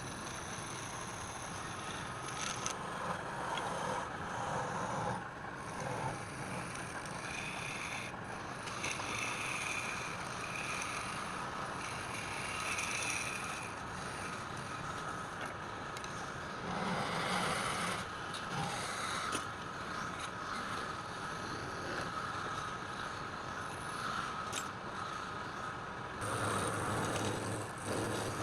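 Wood lathe running steadily while a turning tool scrapes and cuts the spinning wood in uneven passes.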